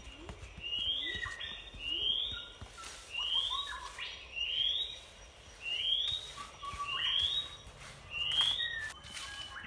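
Metal trowels scraping and spreading wet cement in rhythmic strokes. A repeated rising chirp, about once a second, sounds over them, most likely a bird calling.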